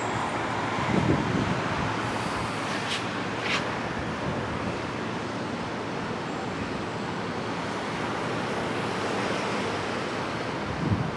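Steady rushing noise of city traffic below, with wind on the microphone. Two brief high squeaks about three seconds in.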